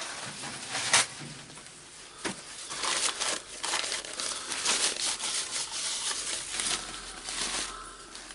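Gear parts of a Makita HR2811 rotary hammer being handled during disassembly: scattered clicks and clinks with rustling and scraping, and a sharper click about a second in and again just after two seconds.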